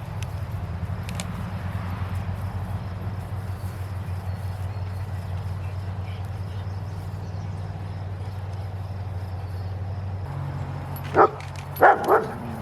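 A dog barks three times near the end, sharp and loud, over a steady low engine hum that runs underneath.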